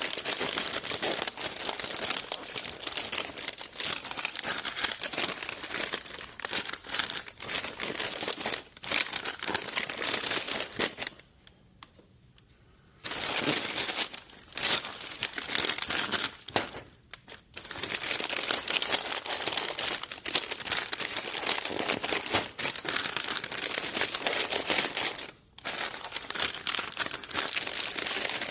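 Chip bags crinkling steadily as they are handled, with a pause of about two seconds near the middle.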